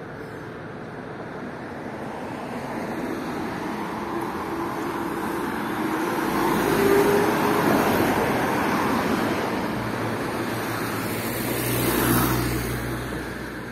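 Cars passing on a residential street: the traffic sound swells to a peak about halfway through, and a second vehicle with a deeper rumble passes near the end.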